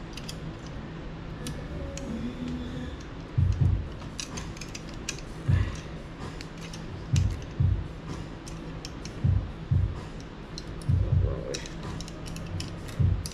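Light metallic clicks and taps of a lockout retainer being fitted onto an LT1 cam phaser, with dull low thumps every second or two as the parts are handled; the thumps are the loudest sounds.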